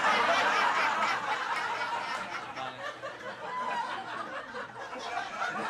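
Audience laughing in a comedy club, loudest at the start and tapering off.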